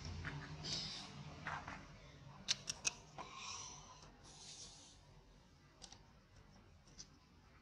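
Faint background with three quick sharp clicks about two and a half seconds in, followed by soft rustles and a few fainter clicks.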